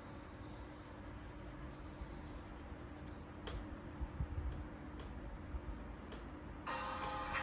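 Colored pencil shading on paper, a soft scratching, followed by a few sharp clicks from about halfway in as pencils are set down and picked up on a wooden table.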